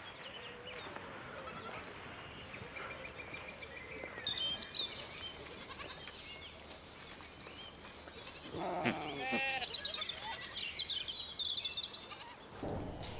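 Goat bleating once, a wavering call about eight and a half seconds in, over a faint background of high chirps.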